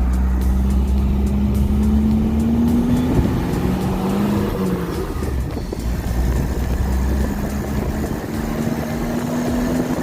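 Vehicle engine running with road noise while driving, its note slowly rising, dropping about five seconds in, then rising again.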